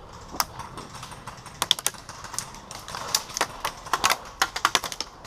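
Airsoft guns firing: irregular sharp cracks, some single and some in quick runs of several shots, the busiest stretch about four to five seconds in.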